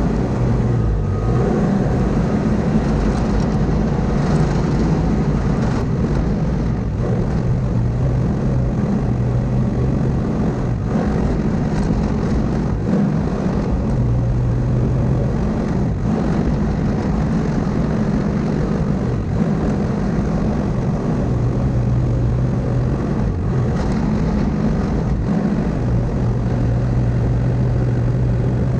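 Diesel engine of heavy earthmoving equipment running steadily under work, its low hum swelling and easing now and then as the load changes.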